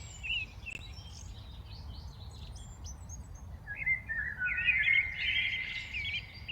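Birds chirping: a few scattered chirps at first, then a busy run of quick rising-and-falling chirps from about halfway in. A steady low outdoor rumble runs underneath.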